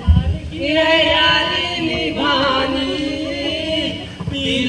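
A song: a singing voice holding long notes with a wavering pitch.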